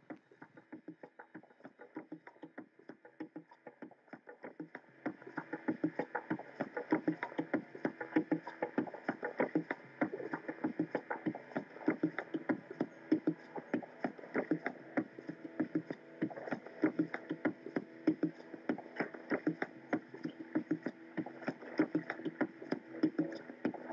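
Background music with a quick, steady rhythmic beat, rising in level about five seconds in.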